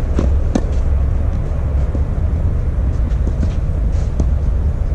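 Steady low rumble, like wind on the microphone or distant traffic, over which a tennis ball knocks sharply off rackets and the clay court a few times, the clearest two just after the start.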